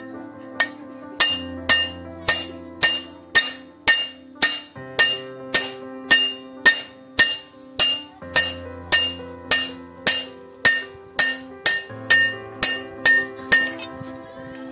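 Hammer blows on a steel plate being bent by hand, struck over and over at about two blows a second, each with a short metallic ring. Background music with held chords plays underneath.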